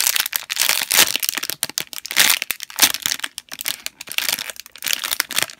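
Thin clear plastic packaging bag crinkling in quick, irregular crackles as hands squeeze and turn the packaged squishy toy inside it.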